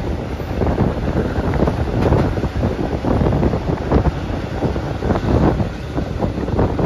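Wind rushing into a moving passenger train carriage, buffeting the microphone, over the train's steady running rumble and clatter.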